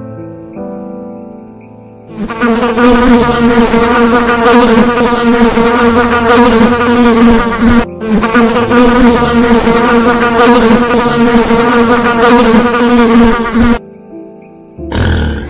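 Loud, steady buzzing of a flying insect's wings that starts about two seconds in, breaks off for an instant midway and stops near the end, with soft background music around it.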